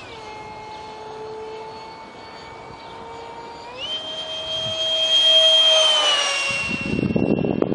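A flying RC jet's 70mm electric ducted fan whining. It is throttled back at the start, throttled up again about four seconds in, and then goes by loudest with its pitch falling as it passes. A low rumbling noise takes over near the end.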